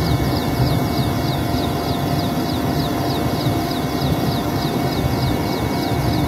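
Helicopter running steadily: a loud rumble from engine and rotor, with a high whistle that falls in pitch and repeats about four times a second.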